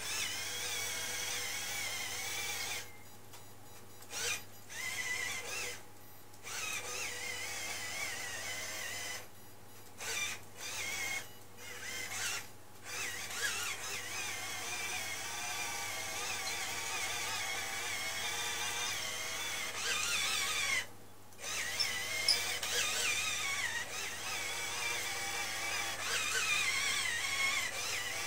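Small electric gear motors of a homemade Arduino WALL-E robot whining as it drives on its tracks, the whine wavering in pitch and cutting out and restarting several times as the motors stop and start.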